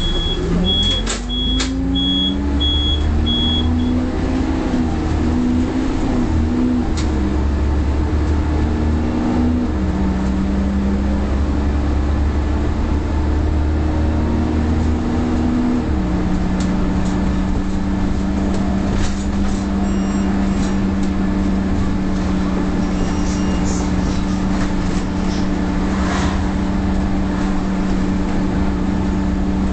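Leyland Olympian 11-metre double-decker bus engine and transmission pulling the bus along, heard from on board. The note climbs as it picks up speed, steps down at about ten seconds and again near sixteen seconds as it changes gear, then holds steady. A high beep repeats about twice a second for the first few seconds.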